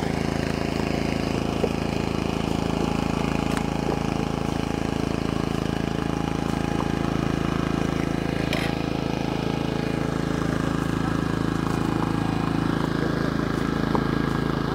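A steady low mechanical hum, like a motor running, holding an even level throughout. A couple of faint ticks sound about three and a half and eight and a half seconds in.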